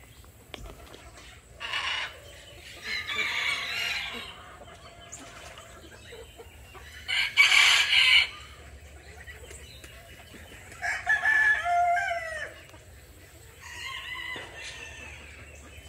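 Roosters crowing, about five separate calls a few seconds apart, the loudest about halfway through, with some chicken clucking.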